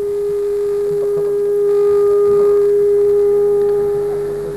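Public-address microphone feedback: one steady ringing tone held at a single pitch, fading out near the end.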